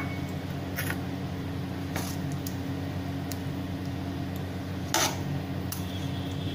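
A steel ladle knocks lightly a few times against the metal pot and the ceramic bowl as kadhi is served, the loudest knock about five seconds in. A steady low hum runs underneath.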